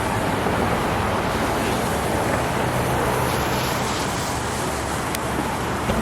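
Steady street traffic noise with a low engine hum underneath.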